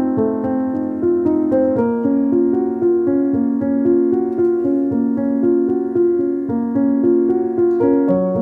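Background music: a steady keyboard melody, its notes changing every half second or so.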